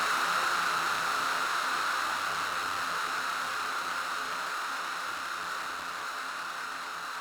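Synthesizer-made noise sound effect: a steady hiss with a brighter band in the middle, slowly fading.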